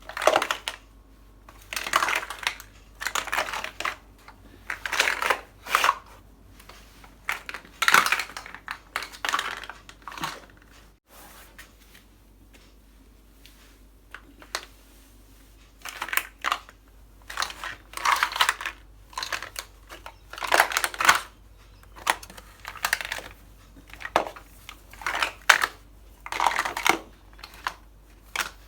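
Plastic Mega Bloks toy blocks clattering and shifting under bare feet, step after step, with a pause of a few seconds about a third of the way in.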